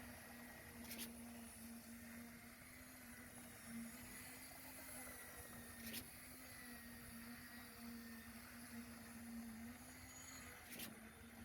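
Faint steady hum of a running engine, with three short sharp clicks about five seconds apart.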